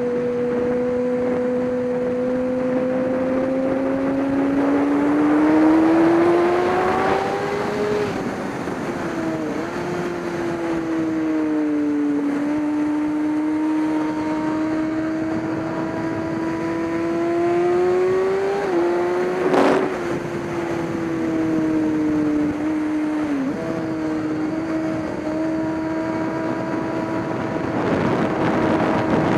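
Race engine running under load, rising in pitch as it revs up and dropping sharply at each gear change, over a steady hiss of wind and wet road. A single sharp crack cuts through about two-thirds of the way in.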